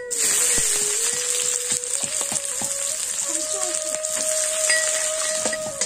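Sliced onions dropped into hot oil in an iron wok, sizzling loudly from the moment they hit, with light clicks as they are tossed and stirred.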